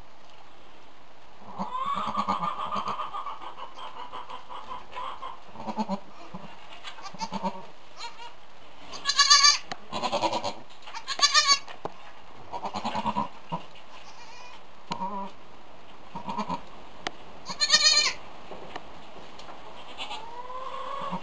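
A doe goat and her newborn twin kids bleating, about ten separate calls. Some calls are long and lower, and the loudest are short, higher bleats about nine to eleven seconds in and again near eighteen seconds.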